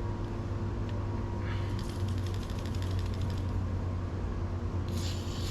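WD-40 aerosol can spraying: a broad hiss starts suddenly near the end. It follows a couple of seconds of rapid ticking, with a steady low hum underneath.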